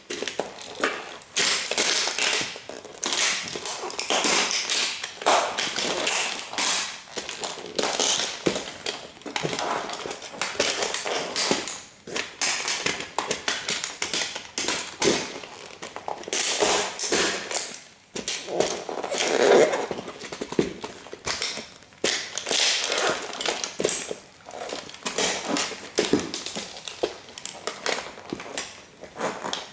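Heavy platform-soled Dr. Martens Jadon boots stepping on and grinding a model Bugatti toy car: a continuous, irregular run of cracking, crunching and clattering as the car's body and small parts break under the soles.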